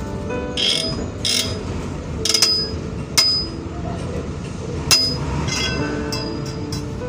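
Long steel tire bar striking and prying against a truck trailer's wheel rim, working the tire off by hand: three sharp metallic clanks with a short ringing tone, a little over two seconds in, about three seconds in and just before five seconds, with rasping scrapes early on.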